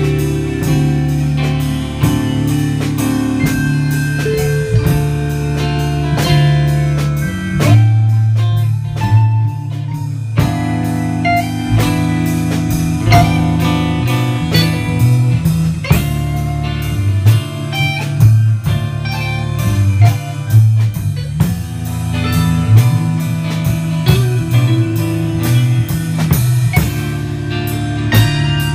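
A band playing a song: guitar over a drum kit, with a low bass line that moves between held notes.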